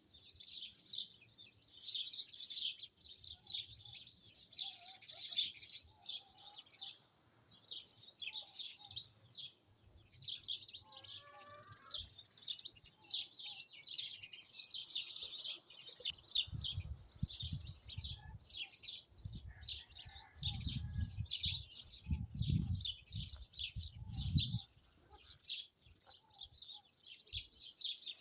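Small birds chirping and twittering in a dense, rapid chorus. Low gusts of wind rumble on the microphone in the second half.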